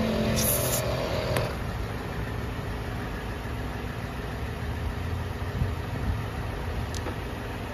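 ARB onboard air compressor running steadily while a tyre is inflated. About half a second in there is a short hiss of air, and about a second and a half in a click as the humming tone cuts off. The compressor's steady running carries on after that.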